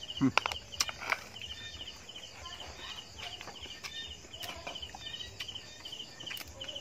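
Insects chirping steadily in short, repeated pulses at one high pitch, with a few sharp clicks in the first second.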